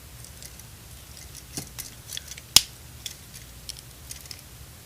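Plastic joints and parts of a Transformers Dark of the Moon Shockwave action figure clicking as it is being transformed by hand: scattered small clicks, with one sharp snap about two and a half seconds in.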